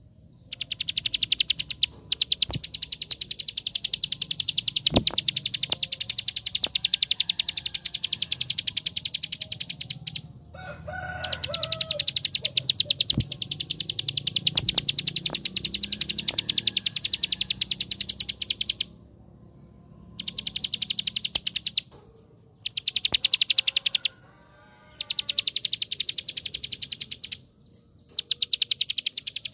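Plain prinia singing its rapid rattling burst song: very fast runs of high, dry notes lasting several seconds each, broken by short pauses.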